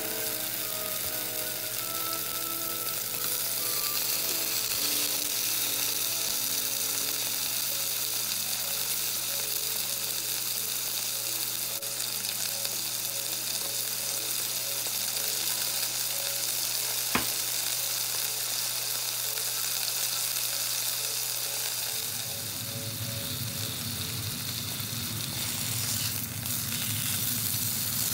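Beef round steaks frying in oil in a pan: a steady sizzling hiss. One sharp tick comes about 17 seconds in, and from about 22 seconds the frying grows fuller and lower.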